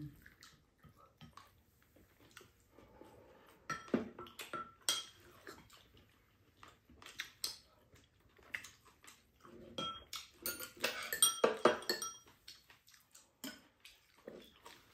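Spoons clinking and scraping against ceramic bowls and a frying pan in short, irregular taps, busiest about two-thirds of the way through.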